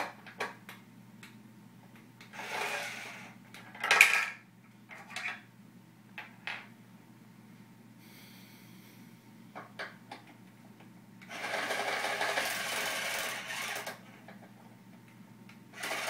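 Cordless drill whirring in short runs, the longest lasting about three seconds in the second half, with clicks and knocks between runs. The drill is being worked on a toy car's screw, and the bit is not gripping well enough to back the screw out.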